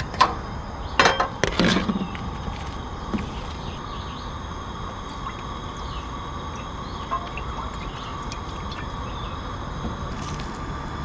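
Several sharp clicks in the first two seconds as a long-nosed lighter lights a two-burner propane camp stove. The burner then runs with a steady hiss and a faint even tone, while liquid from a carton is poured into the pot on it.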